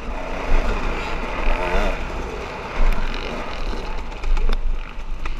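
Dirt bike engine being ridden hard, its pitch rising and falling as the throttle is worked, over heavy wind buffeting on the microphone, with a few sharp knocks.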